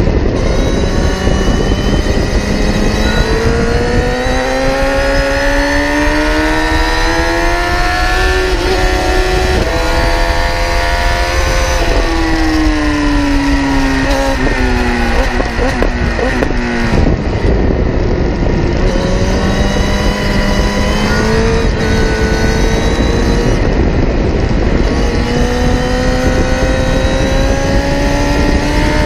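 Kawasaki ZX-10R inline-four sport bike engine at speed on track, heard at the exhaust. Its pitch climbs under hard acceleration, falls as the bike slows about halfway through, then climbs steadily again near the end, over constant wind and road noise.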